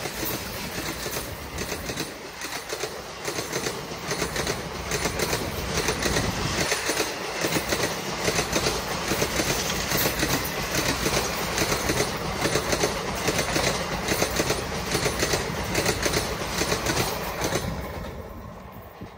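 Coaches of an Indian Railways express train running past at speed: a steady rush with rhythmic clickety-clack of the wheels over the rail joints, fading as the last coach goes by near the end.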